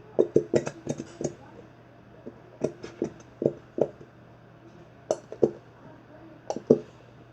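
Short, sharp clicks and taps in irregular little clusters, from a plastic glue bottle and bowl being handled as glue is squeezed out for slime.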